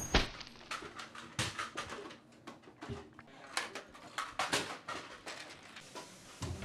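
Irregular short clacks and thumps, a few a second, from toy Nerf blasters and children moving about during an indoor Nerf battle.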